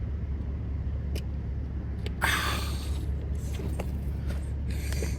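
Diesel semi-truck engine idling with a steady low hum. A short hiss comes about two seconds in.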